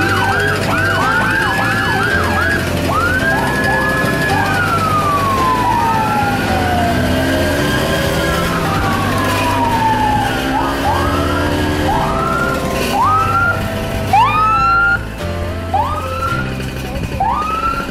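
Police electronic siren cycling through patterns: quick rising yelps at the start, then long, slow falling wails, then separate rising chirps about once a second near the end.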